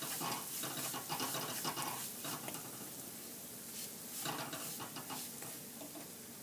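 A spoon scraping and stirring semolina as it roasts in ghee in a kadhai over low heat, with a light sizzle. The stirring strokes are irregular and thin out in the second half.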